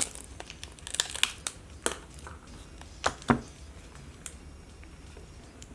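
Packing tape being pulled and crinkled off a taped-up jar: scattered crackles and clicks, the loudest between about two and three and a half seconds in, thinning out after about four seconds.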